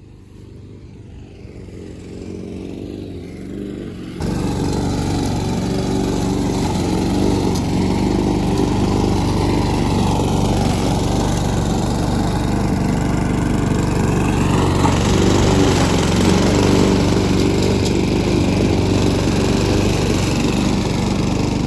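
A small engine running steadily, stepping up to a louder level about four seconds in.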